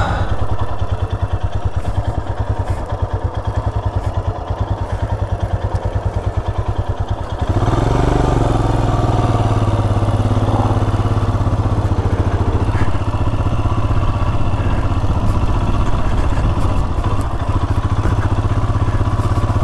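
Royal Enfield Himalayan's single-cylinder engine running at low revs, each firing pulse distinct. About seven seconds in it gets louder with a brief rise in revs as the bike pulls away, then runs steadily at a higher, even pitch.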